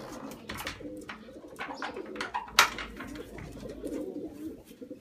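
Young racing pigeons cooing in a loft, a low wavering coo that runs on throughout, with scattered clicks and knocks and one sharp, loud click about two and a half seconds in.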